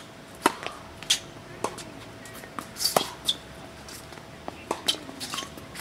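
Tennis rally on an outdoor hard court: a serve about half a second in, then sharp pops of the ball off racket strings and its bounces on the court, one after another.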